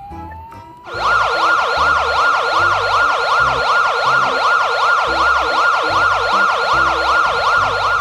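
Electronic police siren switching on about a second in, a fast yelp sweeping up and down about three times a second.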